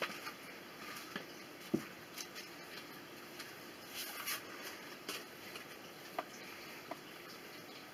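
Quiet kitchen handling sounds: scattered light clicks and knocks as a plastic mixing bowl and utensils are set out on the counter, with one sharper, briefly ringing knock nearly two seconds in.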